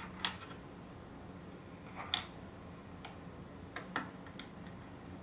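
A screwdriver turning a small screw during mini PC assembly gives a handful of short, irregular metal clicks and ticks. The loudest comes about two seconds in.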